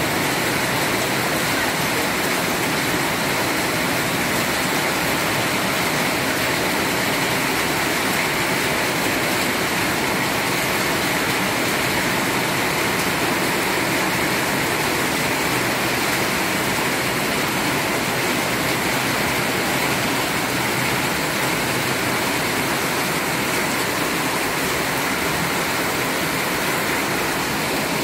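Heavy rain pouring down steadily, a dense even hiss, with water running off a roof edge.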